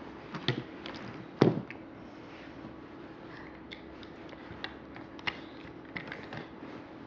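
Light taps and clicks from a small child handling a plastic toy bus on a couch, with one louder thump about a second and a half in, over a steady low hum.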